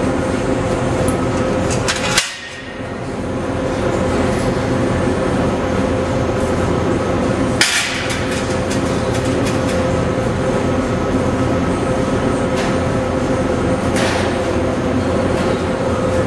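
2008 VW GTI 2.0T turbocharged four-cylinder engine running steadily through a 3-inch Magnaflow cat-back exhaust with no resonator, a constant hum over a low drone. Two sharp clicks come about 2 and 7.5 seconds in.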